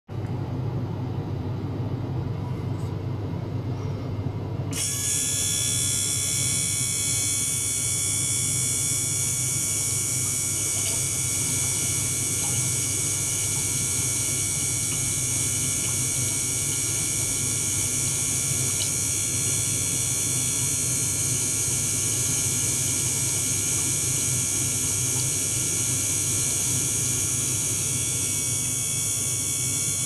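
Small liquid-circulation pump running steadily in a bucket of water, with a low hum. About five seconds in, a high-pitched whine made of many steady tones switches on suddenly and holds.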